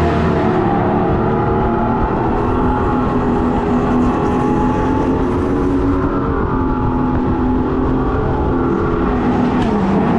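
Go-kart's simulated engine sound, piped through a speaker behind the seat so that it follows the throttle. It runs steadily at speed, then dips in pitch near the end and rises again.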